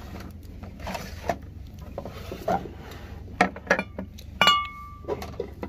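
Tableware clinking and knocking during a meal: a few soft knocks, then a quick run of sharp clicks and one ringing clink of a dish about four and a half seconds in.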